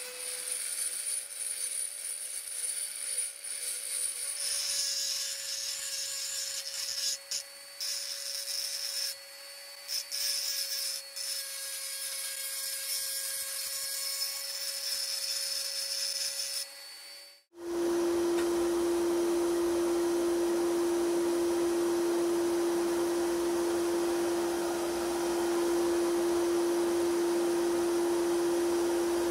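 Handheld rotary tool with a small abrasive bit whining steadily as it grinds the metal body of an antique meat grinder, with gritty scraping that breaks off briefly a few times. About two-thirds of the way through it cuts abruptly to the loud, steady hiss of a sandblasting gun, with a constant hum underneath.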